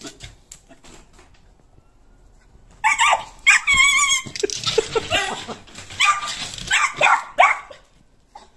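Young Jack Russell puppy yelping and whimpering in a string of high, wavering cries that start about three seconds in, after a swipe from a cat's paw sent it running back.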